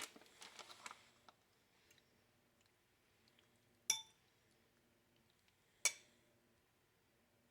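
An eating utensil clinking against a dish twice, about two seconds apart, each strike ringing briefly. Faint rustling fades out in the first second.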